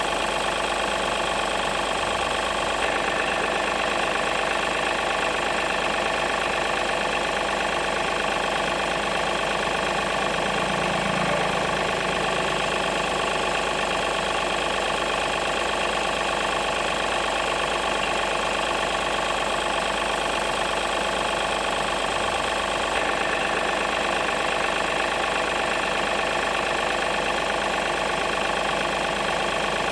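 Remote-control toy truck running with a steady, unchanging engine-like hum.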